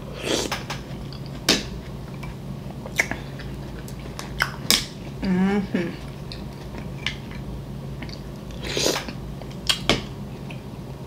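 Close-miked chewing and mouth sounds of eating a mussel, with scattered sharp clicks of mussel shells handled in a glass bowl. There is a brief vocal sound about five seconds in, over a steady low hum.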